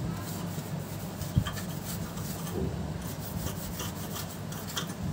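Repeated scratchy rubbing strokes of dust being scrubbed off the inside of a subwoofer cabinet, with a single knock about a second and a half in and a steady low hum underneath.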